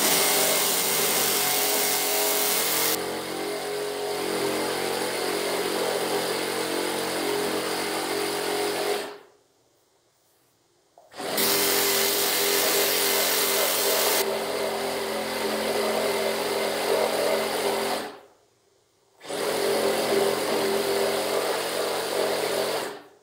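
Makita cordless reciprocating saw cutting a curve through a thick wooden slab, in three runs of about nine, seven and four seconds with short pauses between. The first two runs start harsher for a few seconds before settling into a steadier cut.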